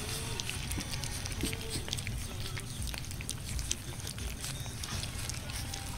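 Several beagle-mix puppies eating moist puppy food from a metal baking tray: a steady patter of small smacking and chewing clicks, with a few brief whimpers in the first half.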